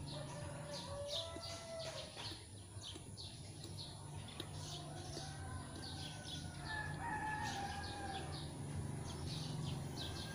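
A rooster crowing, twice, drawn out each time, over repeated high chirps of small birds.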